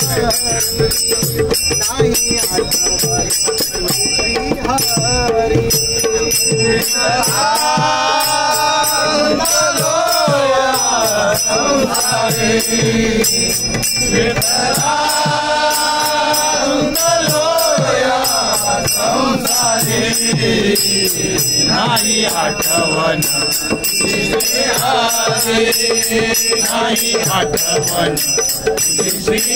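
Group devotional singing of a Marathi abhang by a chorus of male voices, over small brass hand cymbals struck in a steady, ringing rhythm and hand drums. The first few seconds are cymbals and drums alone; the voices come in about seven seconds in, in long phrases with short gaps.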